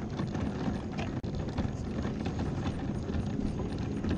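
Electric mobility scooter running along cracked asphalt: a steady low rumble from its motor and tyres, with small clicks and rattles over the road.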